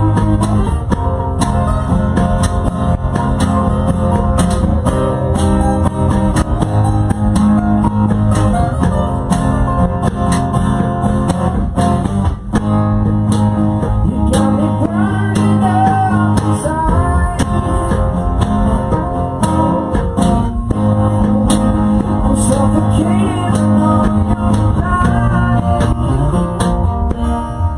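Rock band playing live, with guitar to the fore over bass and drums; the lead line bends in pitch about halfway through.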